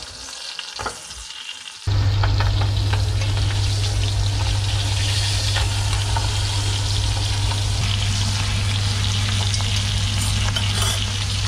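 Butter sizzling and frying around whole pheasants browning in a casserole, with scattered crackles. About two seconds in it jumps louder, with a steady low hum underneath.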